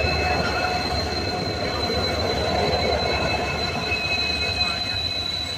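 Indian Railways WDG-4 diesel locomotives, with 16-cylinder two-stroke EMD engines, rolling slowly past close by: a steady low engine rumble with a steady high-pitched squeal over it.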